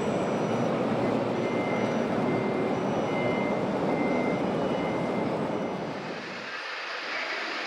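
Reverse-warning beeper beeping about once every 0.8 s, set in a steady loud rumbling hiss. The deep part of the rumble drops away about six and a half seconds in.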